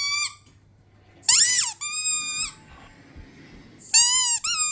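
Squeaky dog toy being squeezed, giving high-pitched squeaks about half a second long in pairs, one pair a little over a second in and another near the end.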